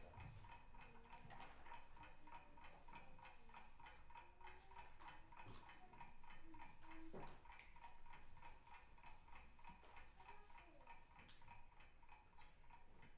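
Faint, fast, even ticking, about five ticks a second, over near-silent room tone.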